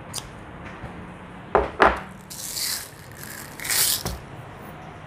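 Magazine of a KWC M92A1 CO2 BB pistol being handled for loading: two sharp metallic clicks about a second and a half in, then two short rattles and a softer click.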